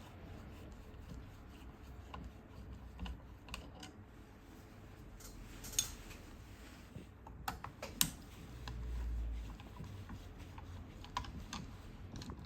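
Scattered light clicks and taps of small parts being handled as the screws and top section of a Tokyo Marui Saiga 12 airsoft shotgun's rail are worked off, with a sharper click about eight seconds in.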